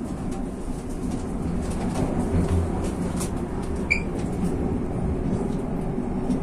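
Madrid Metro Line 7 train, unit 9013, running on the line: a steady low rumble of wheels on rail with scattered faint clicks. A short, high-pitched chirp comes about four seconds in.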